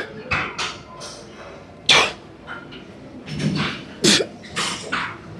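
A lifter breathing out hard and sharply with each dumbbell press rep, one strong exhale about every two seconds with lighter breaths between, and a short low grunt about three and a half seconds in.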